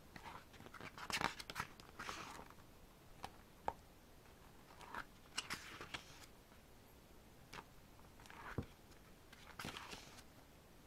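Pages of a photobook being turned by hand: short, soft paper rustles and flicks every second or so, with quiet between them.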